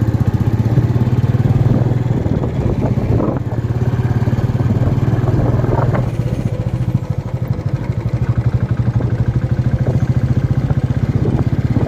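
Royal Enfield Bullet Classic 350's single-cylinder engine running with a rapid, steady pulse while the bike is ridden along the road.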